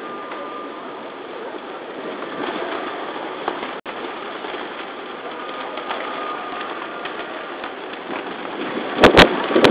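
Steady crowd and street noise as a procession of marchers walks past on a city street, with a few loud blasts of wind on the microphone near the end.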